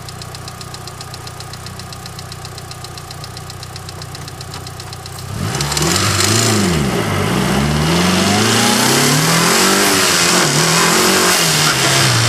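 Car engine idling with a fast, even knock, then revved up and down several times from about five seconds in, louder. The knock is from a failed connecting-rod bearing and a cracked crankshaft, first mistaken for a bad lifter.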